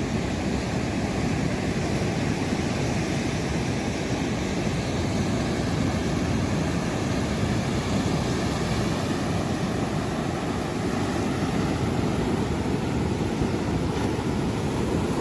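Steady ocean surf with a continuous low rush, and wind on the microphone.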